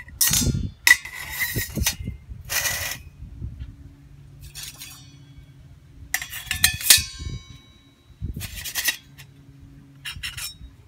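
Stainless steel parts of an Ohuhu wood-burning camping stove clinking and scraping as they are fitted and stacked together. About half a dozen separate knocks and scrapes, some with a short metallic ring.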